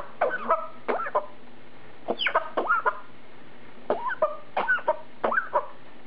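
Congo African grey parrot mimicking a human cough: a string of short coughing sounds in small clusters of two or three.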